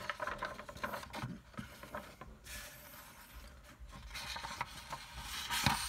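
Paper drawing sheets being handled and slid across a table: short rustles at first, then a longer scraping slide of a sheet in the last couple of seconds.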